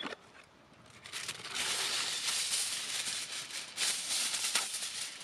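Aluminium foil rustling and crinkling as a fresh sheet is handled, starting about a second and a half in.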